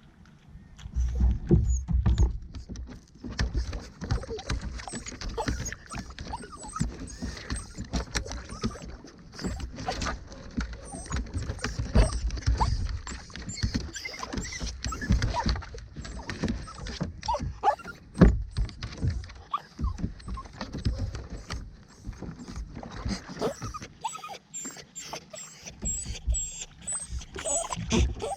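Kayak being paddled: irregular knocks and low rumbling bumps of the paddle and hull, with water noise.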